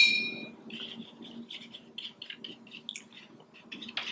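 A paintbrush knocks against a glass water jar with a bright ringing clink that fades within about half a second. Soft swishing and light tapping follow as the brush is rinsed clean in the water.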